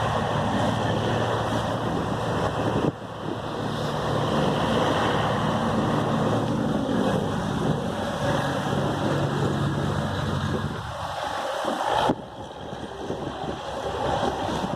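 A boat's engine running steadily with a low hum, under wind noise on the microphone and the rush of surf. The sound changes abruptly about three seconds in and again near the end.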